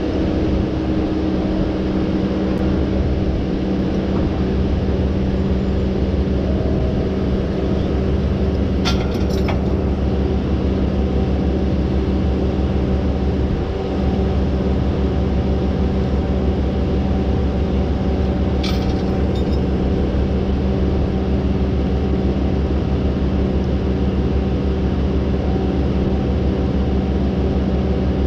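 Heavy equipment's diesel engine idling steadily. Two short sharp clicks sound over it, about a third and two-thirds of the way through.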